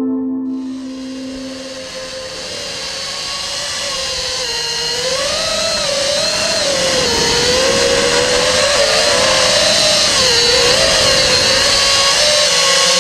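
FPV quadcopter's electric motors and propellers whining, the pitch wavering up and down continuously over a hiss of rushing air. It grows louder over the first few seconds.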